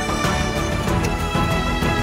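Background music with held notes over a regular beat.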